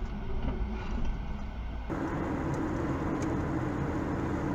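Steady road and engine noise inside a moving car's cabin. About two seconds in, the sound changes abruptly to the cabin noise of another car cruising on a highway, which holds a steady low hum.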